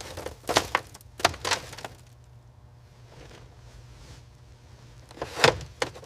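A few short knocks and clicks, about half a second in, twice more around a second and a half in, and a louder pair near the end, over a low steady hum.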